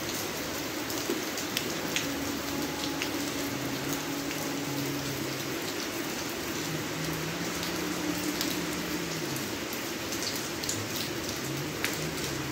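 Steady rain falling on concrete and roofs, with scattered sharper drips.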